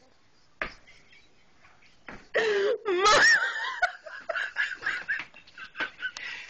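A woman laughing hard, starting about two seconds in: a low burst rising into a high squeal, then short broken bursts of laughter.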